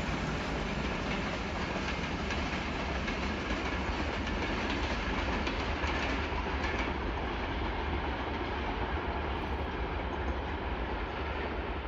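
Pakistan Railways passenger express train passing through the station without stopping: steady wheel-on-rail noise of its coaches going by, swelling slightly midway.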